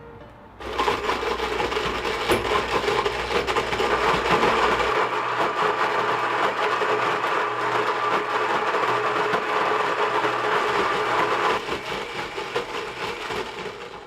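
Kitchen blender switched on about half a second in and running loudly and steadily, blending a thick mix of gel beads, nail polish and motor oil, then switched off right at the end.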